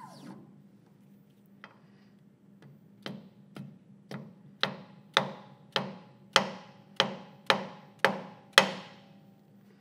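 Mallet striking an aluminum block held against the cast iron tombstone's flange: a run of about a dozen sharp taps, roughly two a second, growing louder, each ringing briefly. The taps shock the tombstone over on the fourth axis to bring its center running true.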